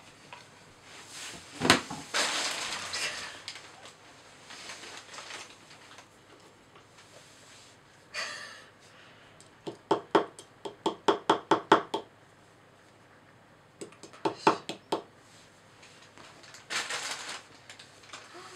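Small mallet tapping a chisel into a dinosaur dig-kit plaster block, with the scrape and crumble of chipped plaster. A loud knock and scraping come about two seconds in, then a quick even run of about ten taps halfway through and a few more taps later, with more scraping near the end.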